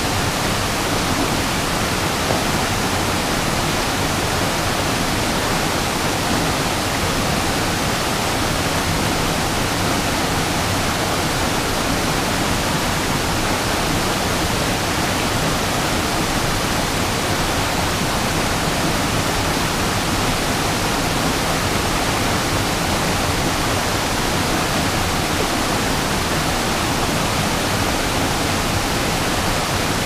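Fast whitewater of the Stroudwater River rushing over and around boulders close by, with a waterfall spilling over a dam just upstream: a loud, steady rush of water that does not change.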